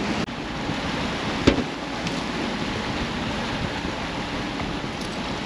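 Steady rush of wind and water noise with no voices, and a single sharp knock about a second and a half in.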